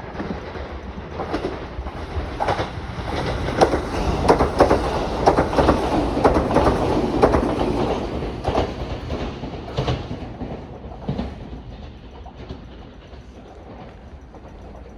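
A train passing close by, its wheels clattering over the rail joints. It grows louder to a peak around the middle, then fades away.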